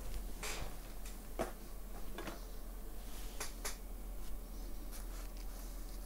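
Scattered light clicks and taps from small hand tools handled on a repair bench, irregular and a second or so apart, over a steady low hum.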